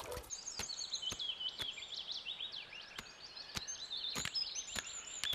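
Birds chirping and twittering as a steady outdoor background, with short sharp clicks about every half second.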